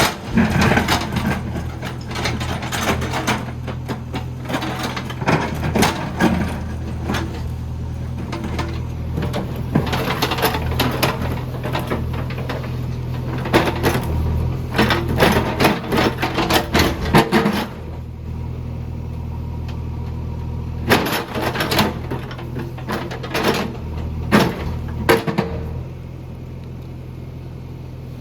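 JCB 3DX backhoe loader's diesel engine running steadily under load, with repeated sharp knocks, clanks and scrapes of its bucket working through rocks. The clatter is busiest through the first two-thirds and thins out near the end.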